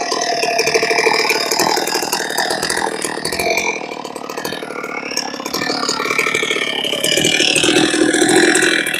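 Chainsaw mill with a 56-inch bar running under load, grinding slowly through a milling cut in a log. The cut is going badly, which the owner puts down to a damaged chain with rounded bottom cutters.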